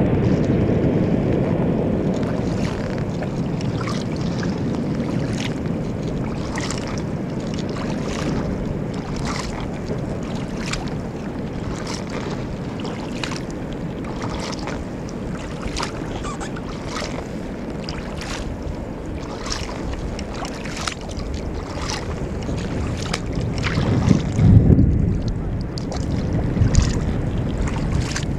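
Low rumble of glacier ice calving into the sea, fading over the first few seconds, then a steady low wash with many short, sharp crackles about once a second. A few heavy low thumps near the end are the loudest sounds.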